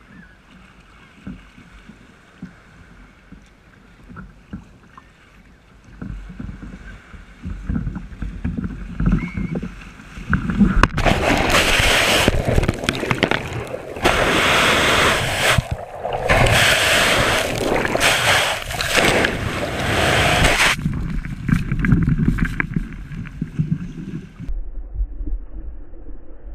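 Breaking surf swamping a capsizing sit-on-top kayak: a loud rush of churning, splashing water over the camera's microphone, lasting about ten seconds and starting about eleven seconds in. Before and after it, a lower wash of waves and wind.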